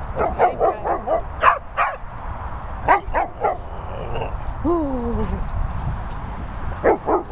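Dogs barking in quick bursts of short yips and barks, with a long whine that falls in pitch about halfway through.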